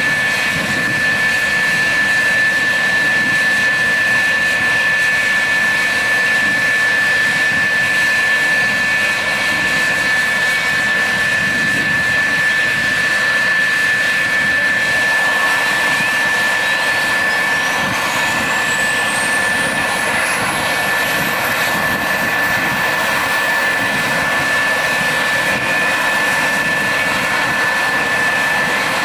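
McDonnell Douglas F-4F Phantom II's J79 turbojet being started by cartridge. Over a steady high whine, a rushing hiss comes in about halfway through as the starter cartridge burns, and then a turbine whine climbs steadily in pitch as the engine spools up.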